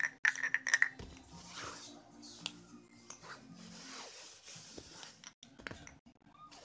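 Perfume bottles and their plastic caps being handled on a bedsheet: a few light clicks and knocks amid soft fabric rustling.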